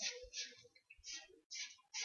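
Sharpie marker strokes scratching across paper in a quick, even rhythm, about two or three strokes a second, with a brief pause partway through.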